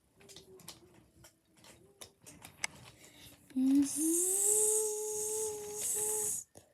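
A few faint light clicks, then about halfway through a child's voice holds one long note that slides up and stays steady, with a breathy hiss over it, and stops just before the end.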